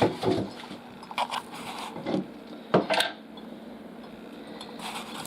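Metal clicks and taps of a retaining pin being worked into a Moen shower valve body by hand: a few separate knocks, the loudest about three seconds in.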